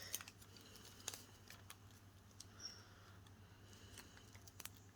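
Near silence with a steady low hum and a few faint light ticks: quiet handling of ribbon and card stock at a craft table.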